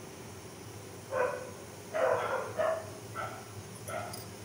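A dog barking in short calls, about six of them starting about a second in.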